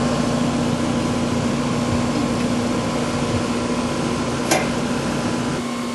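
Steady mechanical hum with a constant low tone, and a single click about four and a half seconds in.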